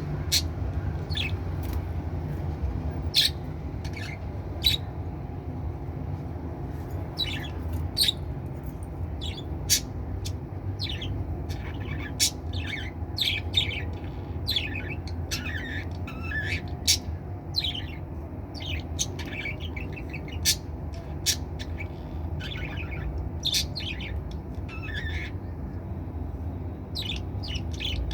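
Pet budgerigars chirping and squawking: many short, sharp, high calls coming irregularly, over a steady low hum.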